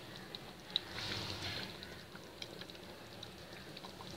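Chicken liver and gizzard curry simmering in a pot: faint bubbling with scattered small pops.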